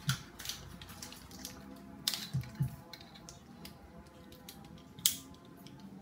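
Scattered clicks and taps of hand tools and wires being handled at a small wall-mounted electrical panel box. A few quick clicks come just after two seconds in, and the sharpest one about five seconds in.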